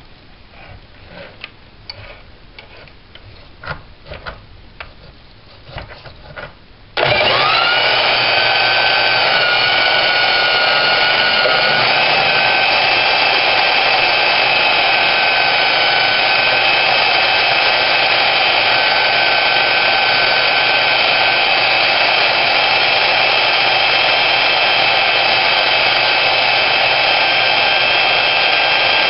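Portable band saw cutting through a steel Dana 44 axle tube. The saw winds down and stops at the start, and a few light knocks follow as it is repositioned. About seven seconds in the motor spins up again and runs steadily through the cut with a high whine.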